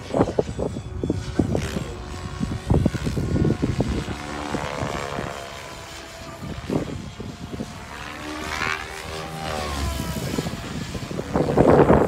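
Electric SAB Goblin RAW 700 RC helicopter flying overhead: its rotor and motor whine sweeps up and down in pitch as it passes, clearest in the middle. Wind gusts buffet the microphone at the start and again near the end.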